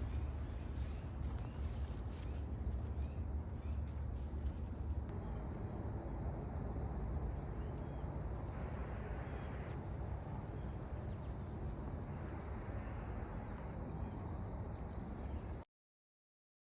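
A steady, high-pitched chorus of insects with a faint regular pulse above it and a low rumble underneath; the sound cuts out completely about a second before the end.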